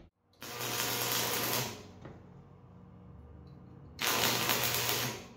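Electric arc welding on a steel tube: two short bursts of arc crackle and hiss with a steady hum, the first starting about half a second in and the second near the end, as a ring for the bearing seat is tack-welded in place.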